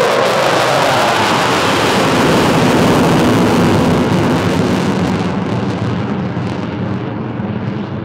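Eurofighter Typhoon's two EJ200 turbofans in full afterburner as the jet climbs away after takeoff: loud jet noise that fades and turns duller over the last few seconds as the aircraft moves off.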